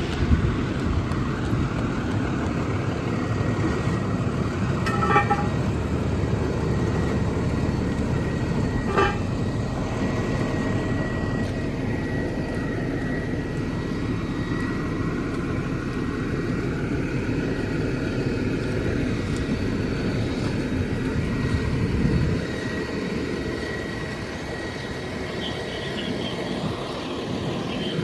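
Fire engine's diesel engine running with a steady low rumble, which drops off about 22 seconds in. Two short pitched chirps sound about 5 and 9 seconds in.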